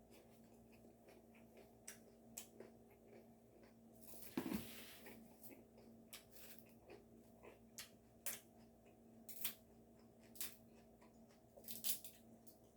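Quiet eating sounds: scattered soft clicks and chewing, with a louder crunch about four and a half seconds in, over a faint steady hum.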